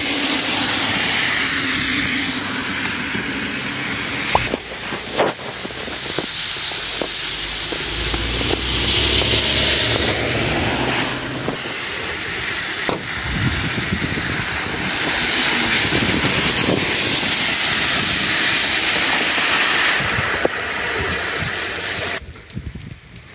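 Cars passing on a wet, slushy road: tyre hiss that swells and fades several times, with a few scattered clicks. The noise drops away suddenly near the end.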